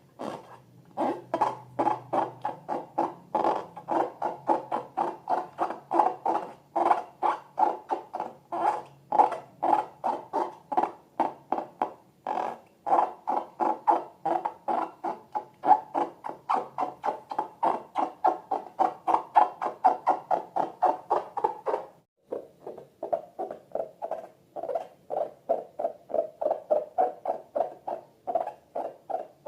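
Slime being squeezed and pressed by hand, a rhythmic run of short wet squelches and pops at about three a second, with a brief pause about 22 seconds in before it goes on a little softer.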